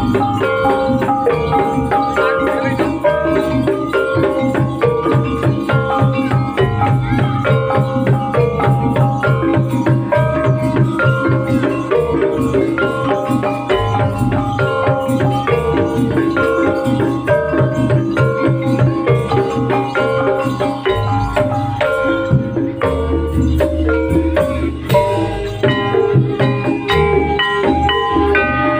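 Javanese jaranan gamelan music: metallophones play a quick repeating melody over steady drum strokes and a sustained low bass.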